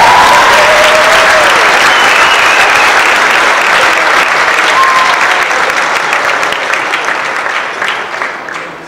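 Audience applauding, the clapping thinning out and fading away over the last couple of seconds.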